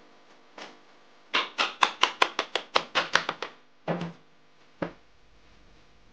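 A quick run of about a dozen sharp wooden taps, about five a second, then two separate knocks. These are wooden boards and strips being tapped and knocked together as a saw blade is set into a wooden sharpening jig.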